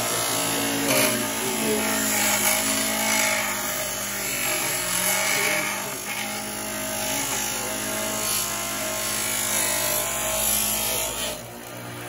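Central Machinery 3450 RPM bench grinder running with a black-coated metal part pressed against its wheel: a steady grinding hiss over the motor's hum. The grinding drops away just before the end.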